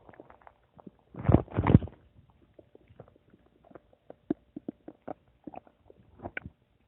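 Human stomach gurgling. About a second in come two louder gurgles close together, followed by scattered short pops and bubbling clicks.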